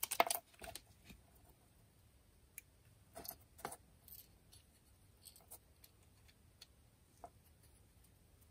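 Faint scattered clicks and light rustling of fingers and a metal tool handling a thin 3D-printed instrument panel decal and its backing sheet. A short crackle right at the start, the loudest part, comes as the decal is peeled off its backing.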